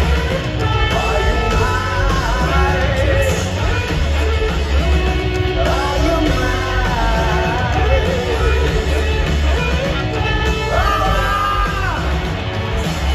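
Live rock band playing with sung vocals, with heavy bass and drums, heard from inside a large concert hall's crowd.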